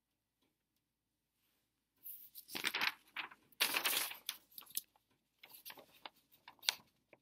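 A sheet of printer paper rustling and crinkling as it is handled, in irregular crackly bursts starting about two seconds in and running for some five seconds.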